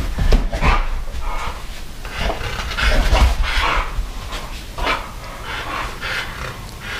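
Two bulldogs, an Old English Bulldog and a French Bulldog, make short breathy bursts and barks in quick irregular succession as they play. Low thumps sound underneath, loudest about three seconds in.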